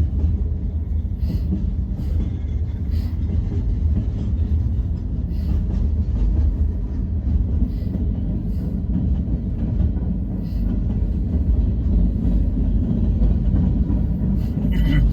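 Freight train rolling through the crossing, a steady low rumble with faint clicks from the wheels on the rails.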